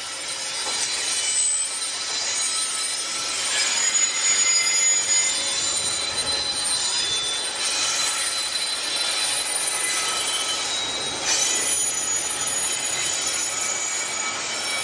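Freight train's cement tank wagons rolling past, the steel wheels squealing against the rails as the train takes the curve. The squeal is several high, steady tones over the rattle and rumble of the cars, swelling a few times.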